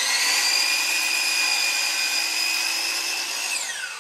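DeWalt 12-inch miter saw motor at full speed, making a flush cut across the end of a wooden handrail, with a steady high whine. Near the end the trigger is released and the blade spins down with a falling whine.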